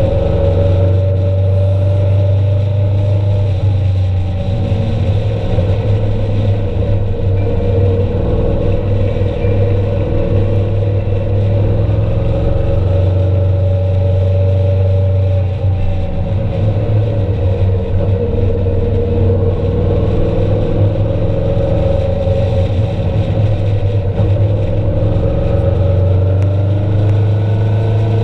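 A road vehicle's engine running steadily while driving, its pitch drifting gently up and down with speed, over a heavy low rumble of road and wind noise.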